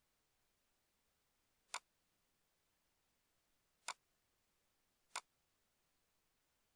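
Three sharp computer mouse clicks over near silence, the first two about two seconds apart and the third a little over a second later.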